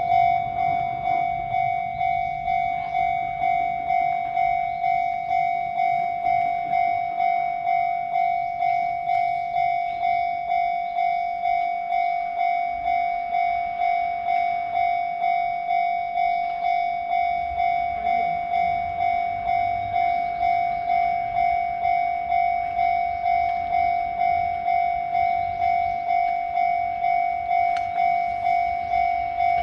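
Japanese railway level-crossing warning bell ringing steadily, a single ringing ding repeated about one and a half times a second.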